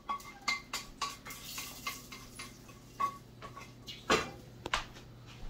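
A wooden spoon stirring dal in a tall stainless steel stockpot, tapping and scraping against the pot in a run of light knocks, with a few louder knocks about three and four seconds in.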